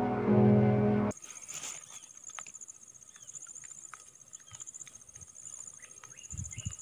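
Background music cuts off about a second in, leaving outdoor ambience. Insects make a steady, high-pitched pulsing trill, with scattered short chirps and faint clicks. A couple of low thumps come near the end.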